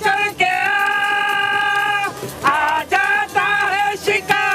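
Women singing a song, holding long notes that bend at their ends between short breaths.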